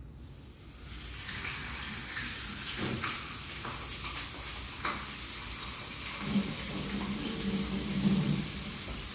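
Food sizzling in a pan on the stove: the hiss builds about a second in and runs steadily, with a few clicks and knocks of utensils against the pan.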